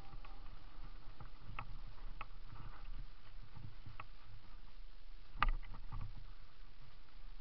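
Mountain bike rolling over a rough, leaf-covered dirt trail: a steady low rumble with scattered rattling clicks and knocks from the bike, the sharpest knock about five and a half seconds in.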